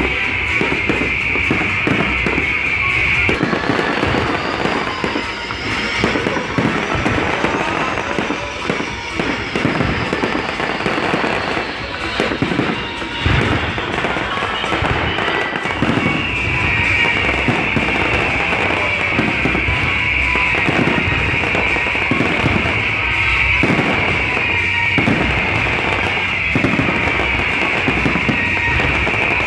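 Aerial fireworks display: a rapid, dense barrage of bangs with continuous hissing crackle, thickening again from about halfway through.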